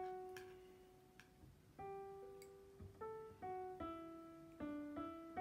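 Quiet instrumental background music: slow piano-like notes, struck one or two at a time and each fading away.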